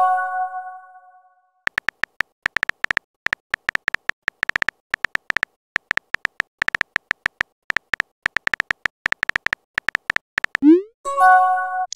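Chat-app sound effects: a short chime of several bell-like tones fades out at the start. Then come rapid keyboard tap clicks for about nine seconds as a message is typed. Near the end a quick rising swoosh marks the message being sent, followed at once by another chime.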